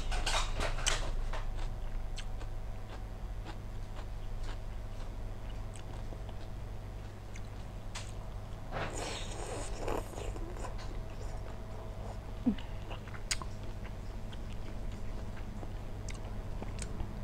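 Close-up eating sounds: a person biting and chewing half-cooked shrimp, with small mouth clicks and smacks and a louder burst of eating noise about nine seconds in. A steady low hum runs underneath.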